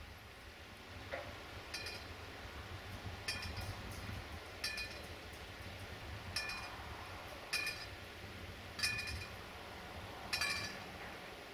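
A short ringing clink, repeated seven times at about one every second and a half, over a faint steady background.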